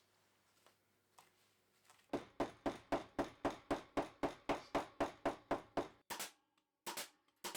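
Upholstery staple gun firing staples into the chair frame in quick succession, about four a second, then a few slower shots near the end. The first two seconds are near silence.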